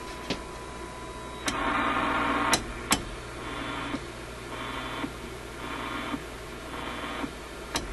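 RCA A25 vacuum-tube shortwave radio hissing with static through its speaker as its front knobs are turned, with several sharp clicks. A steady whistle stops at the first loud click; the loudest hiss follows it, then shorter bursts of hiss come and go about once a second.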